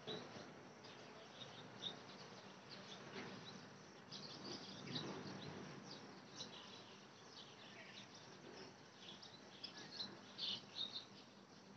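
Faint outdoor ambience: scattered short, high bird chirps over a soft, even background rumble, with a quick run of louder chirps near the end.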